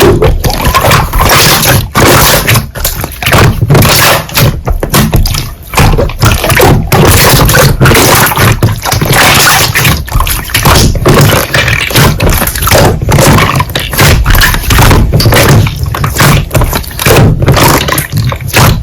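Slime being squished and poked close to the microphone, giving a dense run of crackling and popping sounds.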